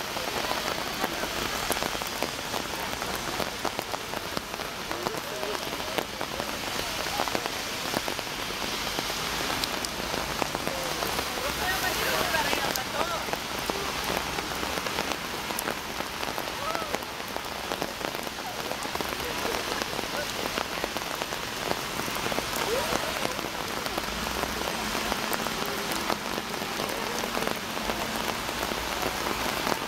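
Heavy rain falling on pavement and road, a steady dense hiss.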